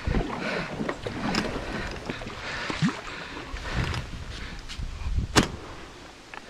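Kayak paddling: paddle strokes and water splashing around the hull, with wind on the microphone. About five seconds in comes one sharp crack, a shotgun shot at a duck sitting on the water.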